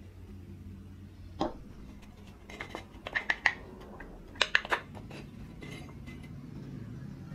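Antique wooden hand plane being taken apart by hand: a single knock about a second and a half in, then quick runs of sharp clicks and clinks as the rusty iron is worked loose and slid out of the wooden body.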